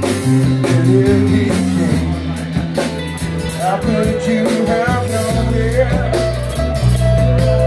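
Band performing an original song: electric guitar, bass and drum kit playing a blues-rock groove, with a sung or lead melody line coming in about halfway through.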